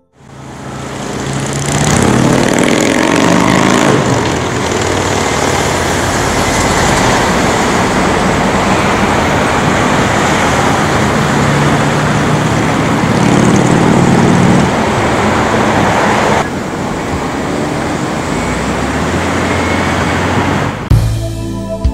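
Street traffic heard from a car at an intersection: cars and a truck passing close by with engine and tyre noise, fading in at the start.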